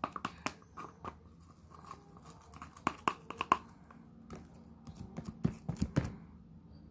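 Homemade slime being pulled out of its pot in pieces: a run of irregular small clicks and pops, loudest around three seconds in and again near six seconds.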